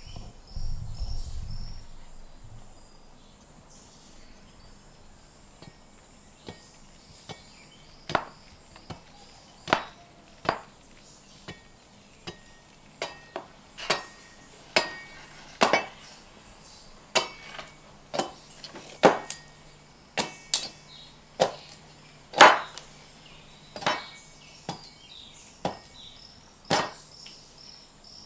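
Sharp wooden knocks struck by hand at an uneven pace, roughly one a second, some much louder than others. A low rumble comes near the start, and faint high insect chirps run underneath.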